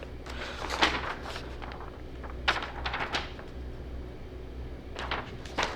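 Handling noises from assembling a fabric-covered IKEA chair: a few short rustling, scraping bursts as the cover and parts are worked, over a steady low hum.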